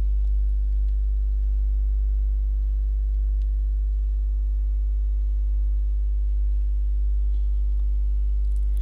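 Steady low electrical hum, like mains hum in the recording chain, with a few faint steady higher tones above it and no change throughout.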